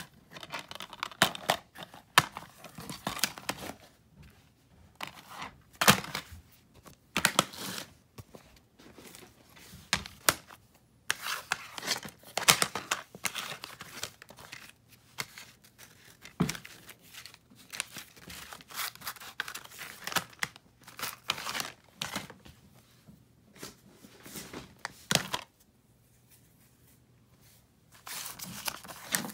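DVD cases and their paper covers being handled: rustling and crinkling of paper with sharp clicks and knocks. These come in irregular bursts with short pauses and fall quiet for a couple of seconds shortly before the end.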